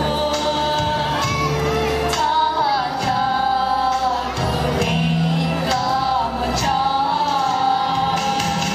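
Live amplified singing of a Hmong-language pop song over instrumental backing, with long held notes that waver in pitch.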